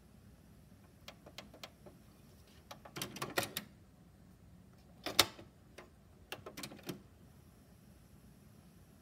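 Plastic clicks and clatter of a Panasonic boombox's cassette deck as its door is opened, a tape handled and the door snapped shut. There are scattered light clicks, a short clatter about three seconds in, the loudest a single sharp snap just after five seconds, and a few more clicks near seven seconds.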